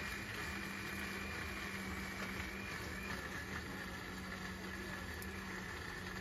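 Busy market background: a steady low hum under faint chatter, with a thin high tone that fades out about three seconds in.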